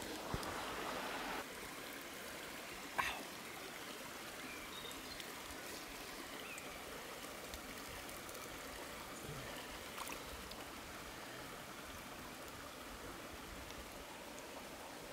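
A forest stream flowing steadily, an even rush of water that is a little louder for the first second and a half. A sharp click sounds about three seconds in, and a fainter one about ten seconds in.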